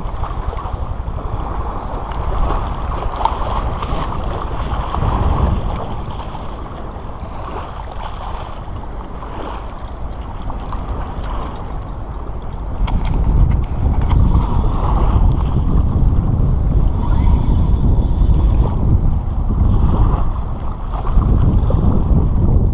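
Wind buffeting the microphone over choppy water slapping against the hull of a small fishing craft. The wind rumble grows stronger about halfway through.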